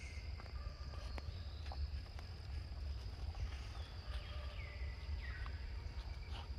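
Forest ambience: a steady high insect drone over a low rumble, with a few short falling chirps about two-thirds of the way through.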